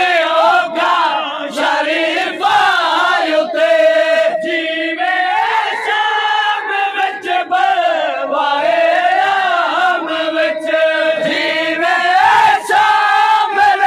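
A crowd of men chanting a noha, a Muharram mourning lament, together in loud unison, many voices holding long sung lines.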